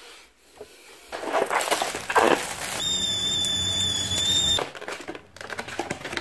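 Stainless stovetop whistling kettle: clattering and rushing noise as it is handled, then a steady high whistle over steam hiss for about two seconds that cuts off abruptly. Near the end, the crinkle of a cup noodle's paper lid being peeled back.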